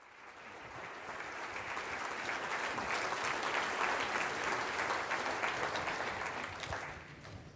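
Audience applauding, swelling over the first few seconds and dying away near the end.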